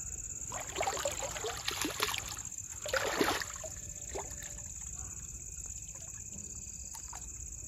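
Water splashing and trickling in irregular bursts over the first three and a half seconds, then quieter, over a steady high chirping of crickets.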